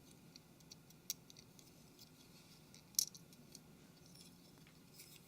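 Faint, scattered clicks and light taps of a mobile phone's small internal parts being handled during disassembly, with a sharper click about a second in and the loudest about three seconds in.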